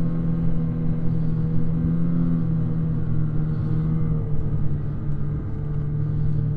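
Snowmobile engine running steadily with no revving, its pitch dropping slightly about four seconds in, over a low rumble of wind on the microphone.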